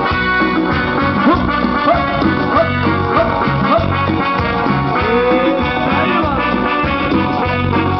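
Live band playing an instrumental passage without vocals: electronic keyboards and guitar over a steady low beat.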